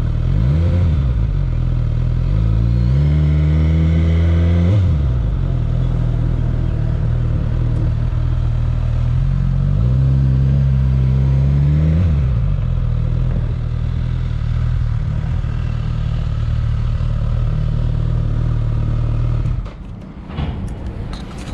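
Suzuki GSX-S1000's inline-four engine running at low speed: a short blip of the throttle at the start, then revs rising and falling back twice while rolling slowly, and a steady idle. Near the end the engine is switched off and a few light clicks follow.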